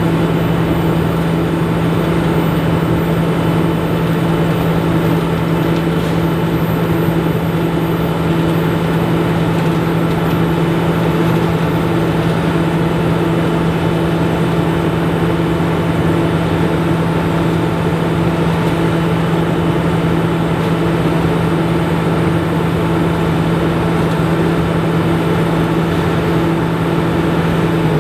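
Fendt Ideal 9T combine running steadily while harvesting corn, a constant low machine drone with an unchanging hum.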